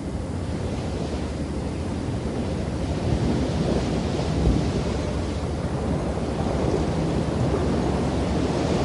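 Ocean surf washing on a beach, a steady rushing noise of waves and wind that slowly grows louder.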